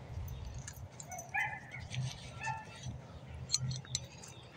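Dogs yipping and barking a few times in short calls, from about a second in to past the middle.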